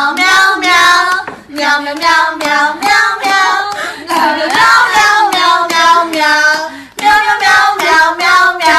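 A high voice singing sustained notes in short phrases of about a second each, with brief breaks between them.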